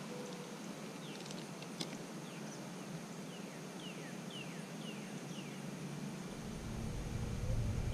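Quiet lakeside ambience with a bird calling a run of about seven short, falling chirps in the middle. Near the end a low rumble of wind on the microphone builds up.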